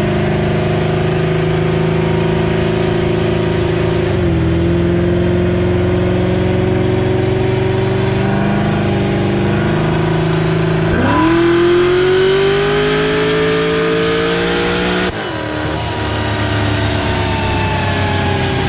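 Chevy SS's V8 pulling hard on a chassis dyno, its note held high with brief pitch dips at about 4, 9 and 11 seconds as it changes gear. It then climbs steadily in pitch to its loudest before the throttle is cut about 15 seconds in, and the engine note falls away as it winds down.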